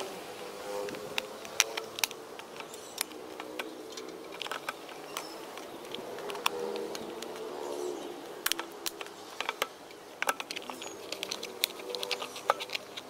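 Scattered sharp clicks and taps of hard plastic being handled: white plastic pipe fittings pressed into holes in the wall of a black plastic tub, with a steady outdoor background hum underneath.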